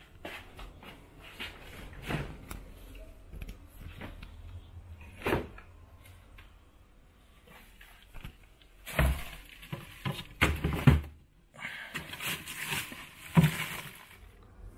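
A household refrigerator door is opened and things are handled inside it: scattered knocks and clatters, loudest in a cluster about nine to eleven seconds in.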